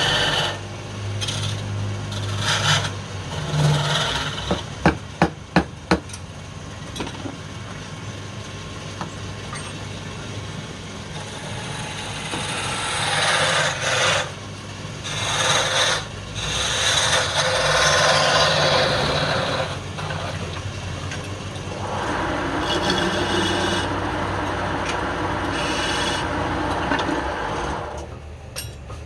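Wood being worked by abrasion or scraping on a woodturning piece, an uneven rasping and rubbing that swells and fades, with four quick sharp knocks about five seconds in.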